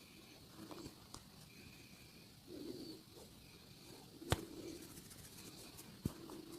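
Hands at work in an upper-body massage, with two sharp clicks about two seconds apart. Soft low coos like a pigeon's sound in between.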